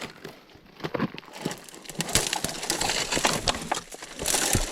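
Twigs and leafy branches crackling and snapping, with brush rustling, as a bike is pushed through a fallen tree. The cracks come irregularly and grow thicker in the second half.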